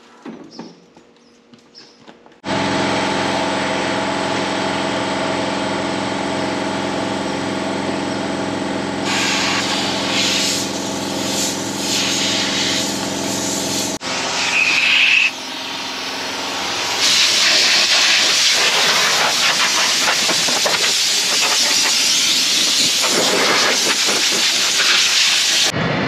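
Farm machinery engine running steadily, joined about a third of the way in by a rushing hiss. After a break near the middle there is a brief high whine, then a louder, steady rushing hiss through the rest.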